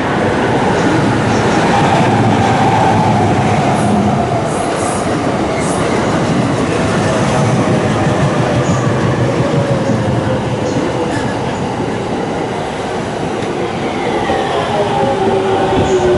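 Train running close by on the rails: a steady loud rumble of wheels, with whining tones that slowly fall in pitch.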